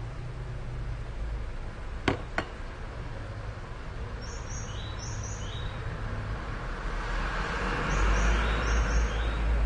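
Background ambience with a steady low hum and short high bird chirps in small groups, two sharp clicks about two seconds in, and a broad noise that swells louder toward the end.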